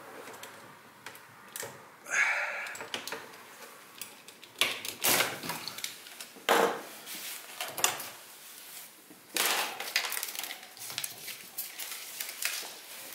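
Hands unpacking and handling parts of a thickness planer: irregular clicks, knocks and clatter of plastic and metal parts, with a few short rustling or scraping bursts.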